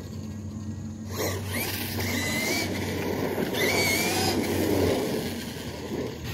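Electric RC monster truck driving on asphalt, its motor whining up and down in pitch on two bursts of throttle, about a second and a half in and again around three and a half seconds in, over tyre and drivetrain noise.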